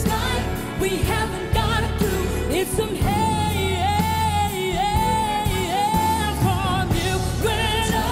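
A song with a singing voice over a steady bass and beat; in the middle the voice holds several long, wavering notes.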